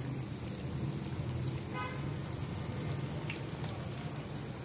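Spinach and cabbage pakodi deep-frying in hot oil in a kadai: a steady sizzle of bubbling oil.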